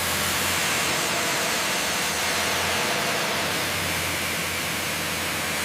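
Sawmill machinery running with a steady, even hiss over a low hum.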